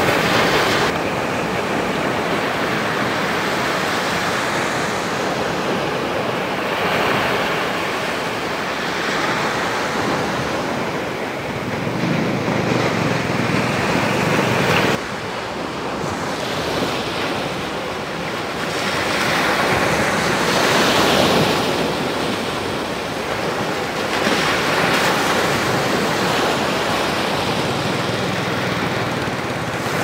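Small sea waves breaking and washing up a sandy beach, the surf swelling and ebbing every few seconds. The level drops suddenly about halfway through.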